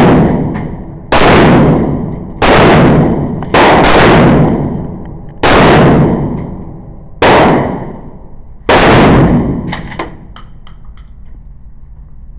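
Gunshots on an indoor range: seven shots in all, one just as the sound begins and then six more every one to two seconds. Each is a sharp crack that dies away in a long echo. A light click follows about ten seconds in.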